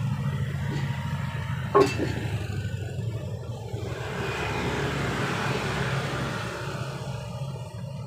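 Engine oil poured from a bottle into a plastic funnel in a motorcycle's oil filler: a soft trickling hiss from about three and a half seconds in, after a single sharp knock about two seconds in. A steady low engine hum sounds underneath.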